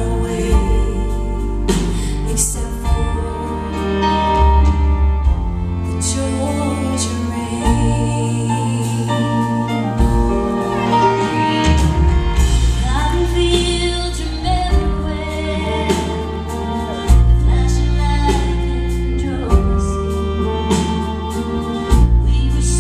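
Live country band playing a song, with a woman singing over sustained bass and keys.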